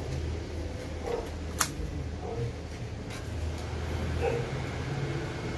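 Low steady hum with short faint animal calls about once a second, and one sharp click about a second and a half in.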